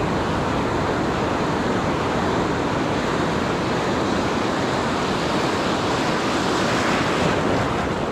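Ocean surf breaking on a beach: a steady rush of waves, one swelling louder about seven seconds in.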